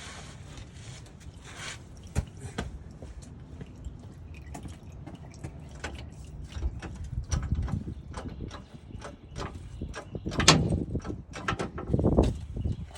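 A floor jack being handled and pumped to lift a pickup truck: scattered metal clicks and knocks, then heavier thumps about every one and a half seconds near the end.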